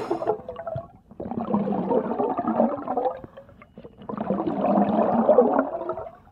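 A domestic cat purring close to the microphone, in bouts of one to two seconds with short pauses between breaths.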